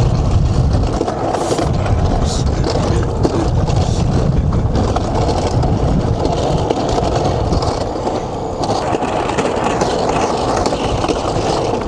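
Loud, steady rolling rumble and rattle of a fast-moving ride, with wind buffeting the microphone.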